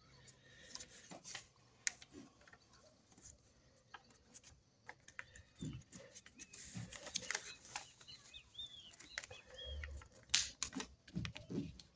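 A sheet of paper being folded and creased by hand against a wooden tabletop: irregular soft rustles, taps and creasing clicks.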